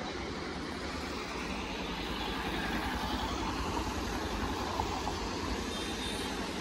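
Steady road noise from riding along a wet highway: a low engine and wind rumble with tyre hiss, as other vehicles pass close by.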